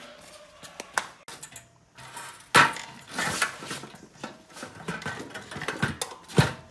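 Metal knocks and clatter as a small four-stroke generator engine is lowered into its tubular steel frame and shifted into place. There are sharp clanks about a second in, a loud one about two and a half seconds in, and another near the end, with lighter rattling between.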